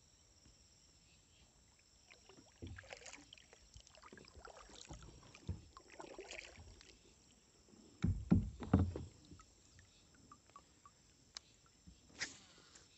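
Kayak paddle strokes splashing in the water, then a cluster of knocks about eight seconds in as the paddle bumps against the kayak.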